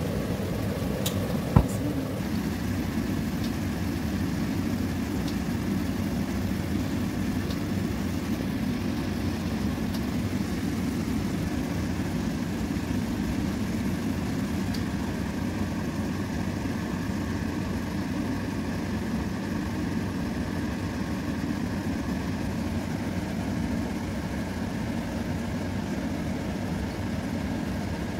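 Steady low rumble of a kitchen stove running under a wok of squid tentacles simmering in sauce, with one sharp knock of a wooden spatula against the pan about one and a half seconds in.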